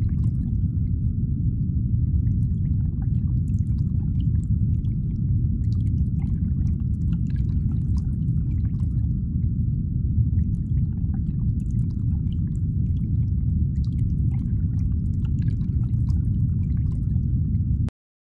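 Steady low rumbling ambience with a thin steady tone above it and faint scattered clicks, cutting off suddenly near the end.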